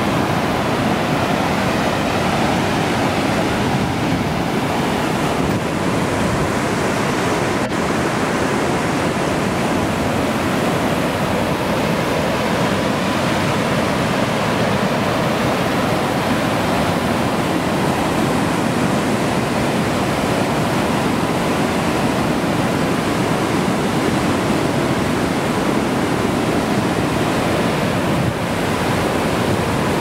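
Whitewater of Fourth Chilnualna Falls rushing over granite at the brink of the fall, a loud, steady rush of water heard close up.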